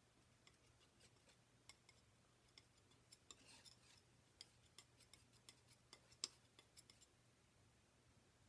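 Near silence with faint, scattered small clicks and taps of a metal palette knife working oil paint, the sharpest tick about six seconds in, over a faint steady low hum.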